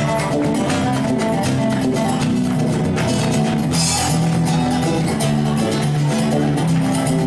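Live flamenco-style guitar music: an acoustic guitar strummed in quick strokes over bass notes from a second guitar, with a brighter flourish about four seconds in.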